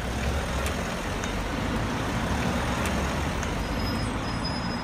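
Steady low engine rumble of a driving vehicle, running evenly without revving.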